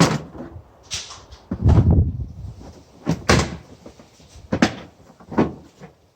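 A series of about six hard clunks and knocks from the UTV's rear seat latch and seat back being released and moved. The heaviest, longest clunk comes about two seconds in.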